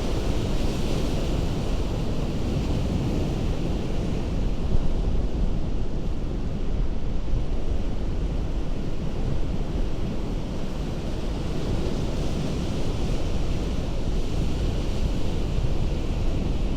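Ocean surf breaking on a rocky coast: a steady, continuous wash of water, with wind rumbling on the microphone.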